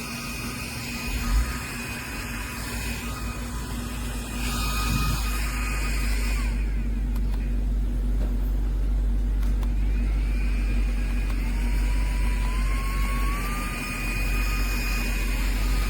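A motor running steadily over a deep rumble, with a whine that rises in pitch about eleven seconds in and then holds.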